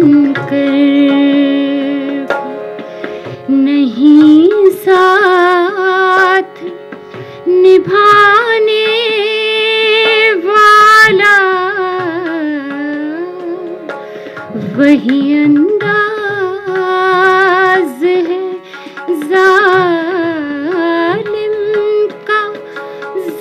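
A woman singing a ghazal to her own harmonium accompaniment. Her voice moves in ornamented, gliding phrases with short breaks, over the harmonium's steady held reed chords.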